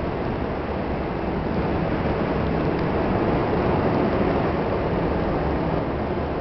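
Steady noise of aircraft engines on an airport apron, growing a little louder midway and easing off near the end.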